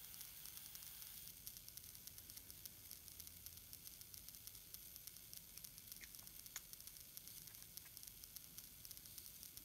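Near silence: faint room tone with a fine crackle, and two faint light ticks about six seconds in.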